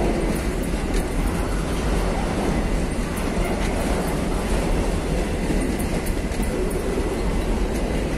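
Empty freight train's hopper wagons rolling past on the track: a steady rumble of steel wheels on rail with frequent short, irregular clicks and clatter.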